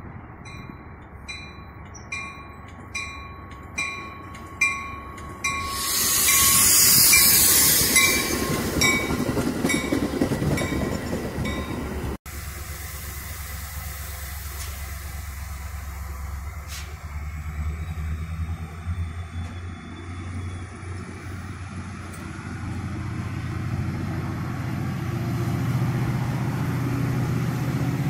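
Metra commuter train of bilevel cars at a station: a bell ringing in regular strokes at first and a loud rush of noise about six seconds in. Then a steady low diesel locomotive rumble that grows louder as the train moves, with a faint rising whine.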